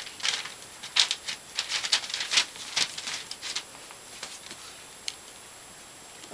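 A puppy playing with a knotted rope toy on a quilted blanket: a quick, irregular run of rustles and soft clicks from the toy and its paws for the first few seconds, then only a few scattered clicks.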